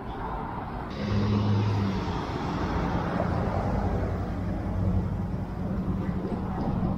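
A motor vehicle's engine running close by with a steady low hum over road noise, getting suddenly louder about a second in.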